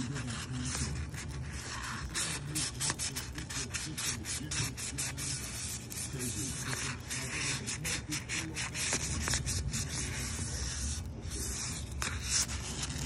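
Sandpaper and a sanding sponge rubbed by hand over polished exhaust tips in quick back-and-forth strokes, scuffing off the polish before high-heat paint. A low steady hum runs underneath.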